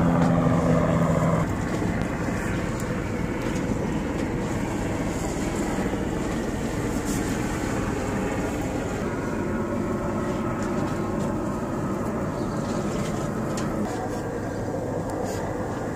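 Steady drone of an engine running, with a louder humming tone on top that stops about a second and a half in.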